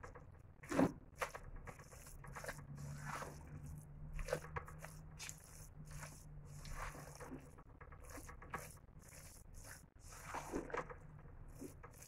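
Silicone spatula stirring shredded chicken filling in a pot: faint, irregular scrapes and squishes of the spatula through the food and against the pot, with a louder scrape about a second in.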